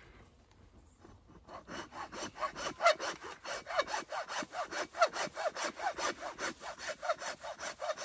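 A hand blade sawing through the woody stem of a calabash gourd with quick, even back-and-forth strokes that squeak faintly. The sawing starts about a second and a half in.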